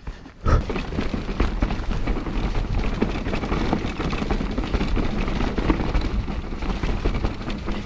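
Mountain bike descending a rough, muddy trail, heard from a GoPro on the rider: wind buffeting the microphone and tyre rumble, with a constant clatter of small knocks from the bike. It starts about half a second in.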